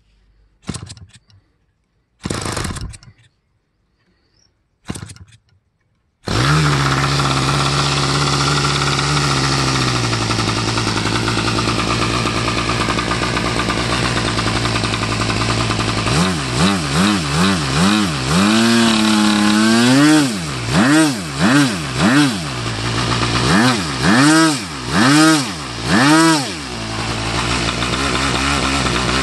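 O.S. MAX 95AX two-stroke nitro glow engine turning a wooden propeller: after three short bursts as it is being started, it catches about six seconds in and runs at a steady idle. From about halfway it is revved up and down in a series of quick throttle blips, then settles back to idle near the end.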